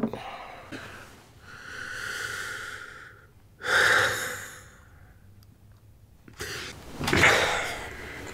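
A man waking up in bed: a long breathy exhale, then a louder voiced sigh a few seconds in. Near the end comes a rustle of bedcovers as he sits up.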